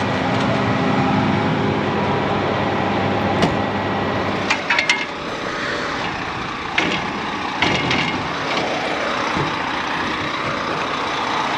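Combine harvester running steadily, with a few sharp metallic clicks and knocks.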